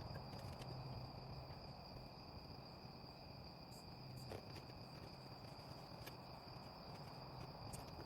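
Faint, steady high trilling of night insects, typical of crickets, over a low hum, with a few light clicks.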